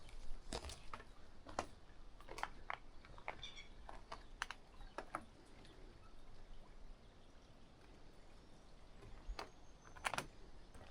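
Footsteps of a person walking on a path: light, separate steps about once every half to one second, pausing for about three seconds past the middle before two more steps near the end.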